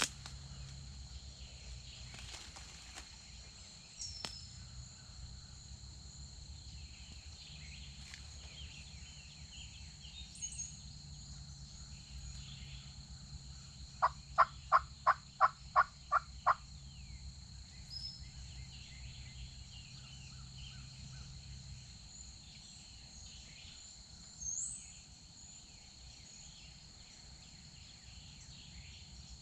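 A run of about nine sharp turkey yelps, evenly spaced at three or four a second, about halfway through, over a steady high insect drone. A few brief songbird chirps come and go.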